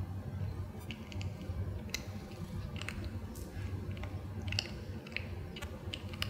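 A cat chewing a treat: irregular small crunches and clicks of its eating, over a low steady hum.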